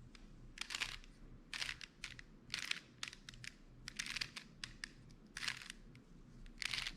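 Rubik's cube faces being turned by hand through an algorithm: a series of short plastic scraping clicks, about two a second.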